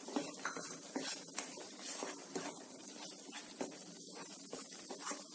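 Black spatula stirring and scraping a thick onion-tomato masala, with ground spices just added, in a nonstick kadhai, with irregular small clicks and a light sizzle of the masala frying in oil.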